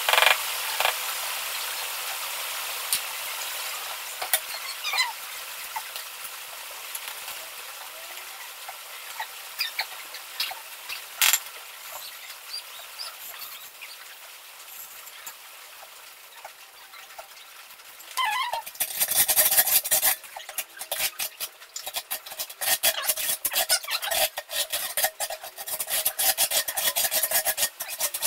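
Trowel scraping and working cement mortar on a mortar board in quick, dense strokes, starting about two-thirds of the way in. Before that there are only a few scattered taps and light scrapes.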